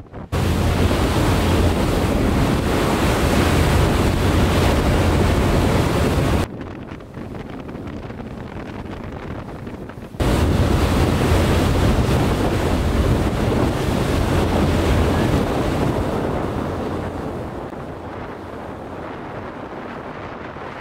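Wind buffeting the microphone over the rush of churning water and spray alongside a moving boat's hull. The loud rush drops sharply about six seconds in, returns about four seconds later, and fades gradually over the last few seconds.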